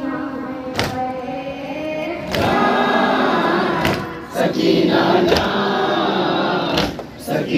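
Noha chanted in chorus: a boy's voice leading and a group of men joining in a mournful refrain through a microphone, fuller and louder a little over two seconds in. Sharp slaps land in time with the chant about every second and a half, the chest-beating (matam) that goes with a noha.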